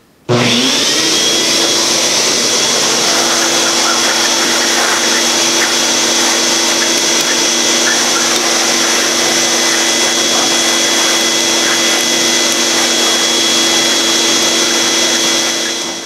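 Shop vac running in reverse as a blower, its hose blowing dust out of refrigerator condenser coils. It switches on just after the start with a brief rising whine, runs loud and steady, and shuts off near the end.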